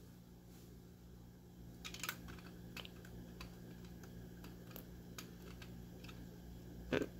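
Faint, scattered clicks of Lego plastic pieces as a brick-built speed loader of shells is fitted into the broken-open barrels of a Lego double-barrel shotgun. There are a few light clicks, the clearest about two seconds in and just before the end.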